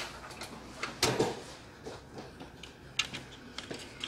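Irregular clicks and knocks of plastic and metal parts being handled: a graphics card and its 8-pin and 6-pin power cables being fitted inside a PC case, with a louder rustling knock about a second in.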